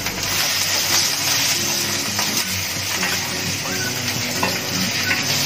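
Chicken pieces and onion sizzling in hot olive oil in a frying pan, steady, while a spatula stirs and scrapes them around the pan. Soft background music plays underneath.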